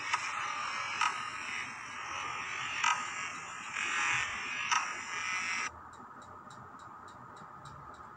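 Dense soundtrack music with sharp clicks that cuts off suddenly about two-thirds of the way in. It is followed by a faint, steady high ticking, about three ticks a second.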